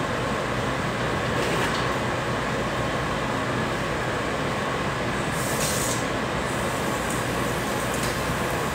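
Steady background hum and hiss, with faint steady tones, that keeps an even level throughout; a short brighter hiss comes about five and a half seconds in.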